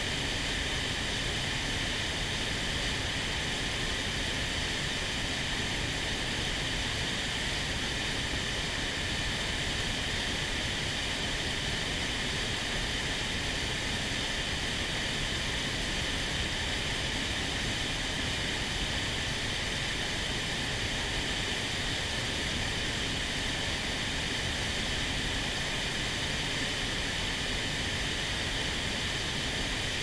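Steady rush of a fast mountain river running in spate, an even roar of water that does not change.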